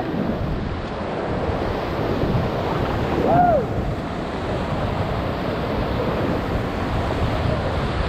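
Whitewater rapids rushing and churning around a paddle raft, with wind buffeting the microphone. A short rising-and-falling cry cuts through about three seconds in.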